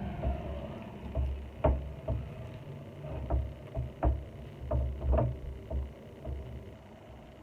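Irregular knocks and taps, about a dozen over several seconds, with low thuds beneath, over a faint steady hum: the sound of things being handled during kitchen work.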